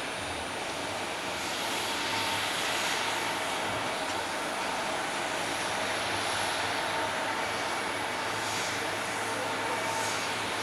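Boeing 737-800's CFM56 jet engines, heard as a steady rushing roar that swells slightly about two seconds in.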